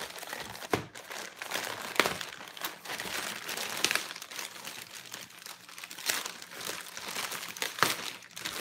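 Packaging being unwrapped by hand, crinkling and rustling, with several sharp crackles.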